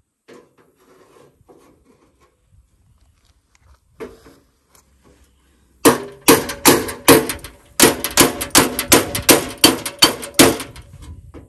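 A few faint handling noises, then, about six seconds in, a fast run of hammer blows on metal, about three to four a second, each with a ringing tone.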